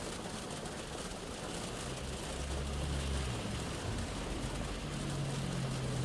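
Shower rain pattering steadily on a car's roof and windows, heard from inside the car. Low rumbles of passing road traffic come through about two seconds in and again near the end.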